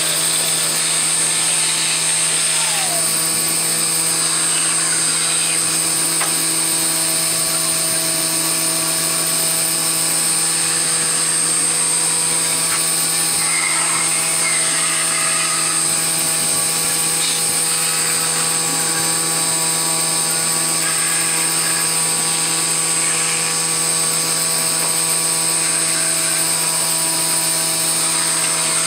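Bandsaw running with a steady hum while its blade cuts through a thick block of wood.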